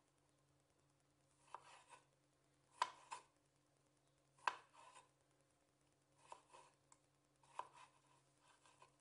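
Kitchen knife slicing pickled cucumbers on a wooden cutting board: sharp knocks of the blade reaching the board, at an uneven pace and often in pairs, with a soft scrape between strokes.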